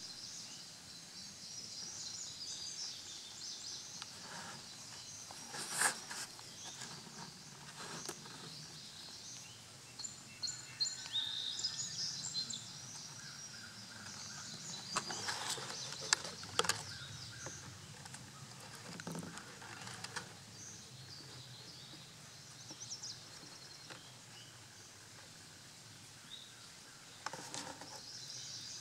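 Outdoor ambience with small birds chirping on and off in the background. Occasional bumps and rustles from handling close to the microphone are the loudest sounds, a few seconds apart.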